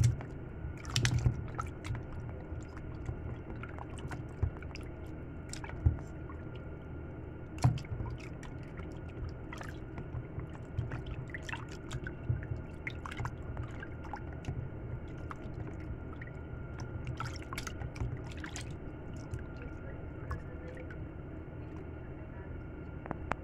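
Raw chicken wings being handled by hand in water inside a plastic food container: wet squishing and dripping, with irregular small knocks and clicks.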